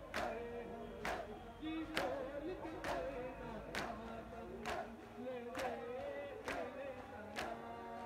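A crowd of men chanting a noha, a mourning lament, in unison, with sharp chest-beating strokes (matam) falling together about once a second.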